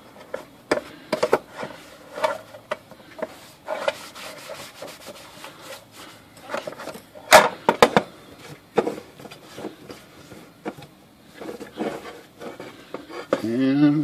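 A cloth rag rubbing and wiping over the black wrinkle-finish painted metal lid of a Royal KMM typewriter, wiping off the excess water-displacement spray. Scattered short scrapes and clicks come from handling the lid, with the loudest knocks about seven seconds in as the lid is picked up and turned over.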